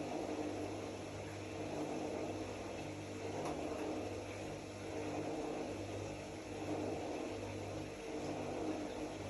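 Zanussi AquaCycle 500 FA 623 washing machine running: a steady motor hum with a gentle rise and fall every second or two.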